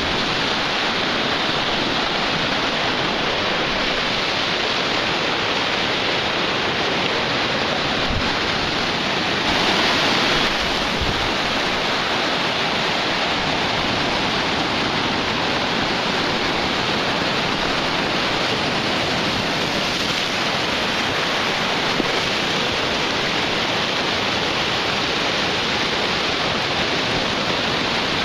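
Ocean surf washing onto the beach, a continuous rushing noise that swells briefly louder about ten seconds in.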